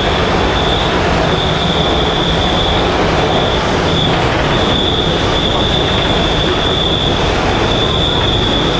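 Beijing Metro SFM04 train running through a tunnel, heard from inside the car: a steady rumble of wheels on rail with a high-pitched wheel squeal that cuts out and comes back several times.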